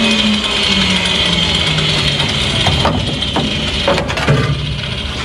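Whine of a corded rotary cutting tool spinning down after being switched off, its pitch falling slowly. Over it, several sharp metal clanks and scrapes as rusted floor-pan sheet metal is pried and pulled loose by hand, about three to four and a half seconds in.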